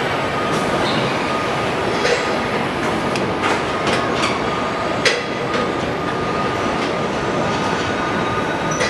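Factory-floor din of a robotic body-shop assembly line: a steady dense rumble and hiss with a thin steady whine running through it, broken by sharp metallic clicks and clanks, the loudest about five seconds in.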